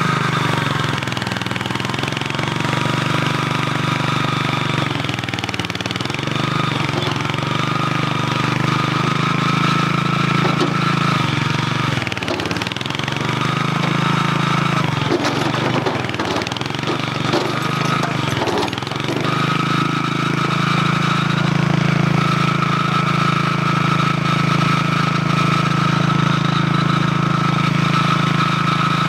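Compact mini loader's small engine running, dipping in speed several times as it lugs under the load of the lift arms, then running steadily for the last third, with a fainter whine above it.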